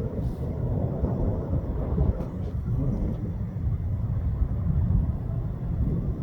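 Wind buffeting the microphone: a gusty, low rumble that swells and dips throughout.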